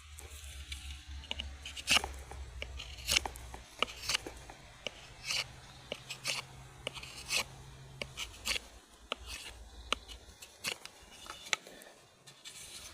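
A knife shaving and scraping a wooden stick flat: irregular sharp cuts and crunches, a dozen or more spread unevenly through.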